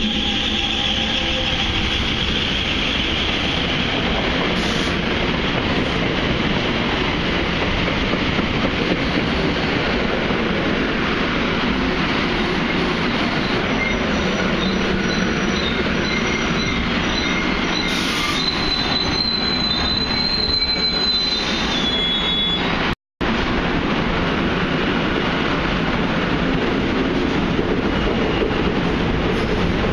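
NJ Transit passenger trains rolling past close by, with continuous wheel-on-rail noise and a high wheel squeal near the start. The sound breaks off for a moment about 23 seconds in, then goes on with another passing train.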